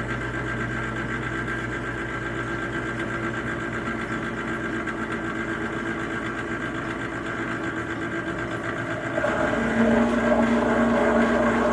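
Dishwasher running with a steady motor hum; about nine seconds in it steps up louder with a new, higher hum as the machine moves to another part of its cycle.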